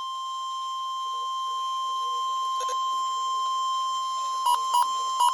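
NOAA Weather Radio 1050 Hz warning alarm tone: a steady, piercing single-pitch alert tone, slowly growing louder, that breaks up into a few short blips near the end. It signals that a warning, here a high wind warning, is being broadcast.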